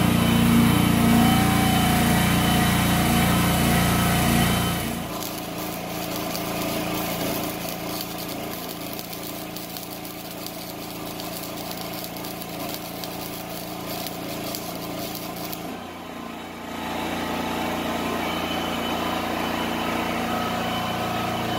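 A steady engine hum, then a stick-welding arc crackling for about ten seconds as a hook is welded onto a steel loader bucket. The arc stops and the engine hum comes back near the end.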